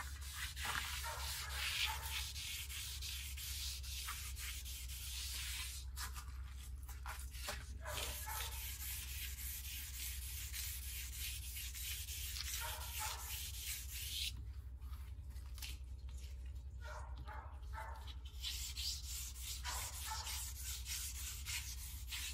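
Wet/dry sandpaper on a sponge rubbing back and forth by hand over a bass boat's oxidised metal-flake finish, wet-sanding it down smooth. The strokes rasp steadily, with a pause of a couple of seconds about two-thirds of the way through.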